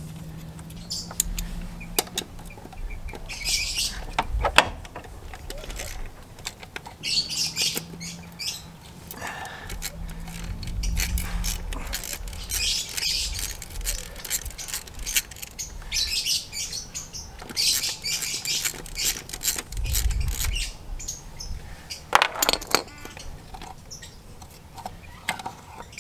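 Ratchet and 8 mm socket undoing the bolts of a concentric clutch slave cylinder: short runs of ratchet clicking, with a few sharp metal knocks, the loudest about four seconds in and again near the end.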